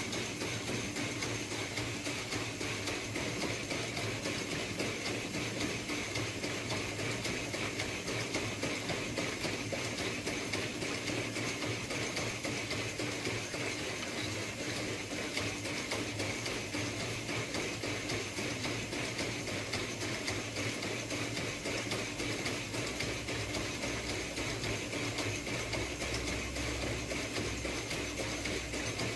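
Home-built CNC saw running: a steady motor hum with a fine, even grinding noise, and a low rumble swelling from about two-thirds of the way in.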